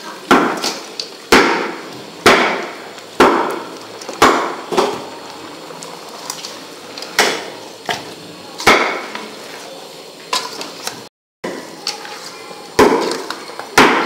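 Metal ladle clanking and scraping against the side of a metal cooking pot while stirring raw duck pieces into curry paste: irregular sharp knocks, one or two a second, with a pause around the middle.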